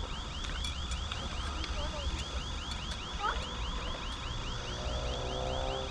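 Cicada calling: a steady high chirp repeating evenly, about five to six times a second.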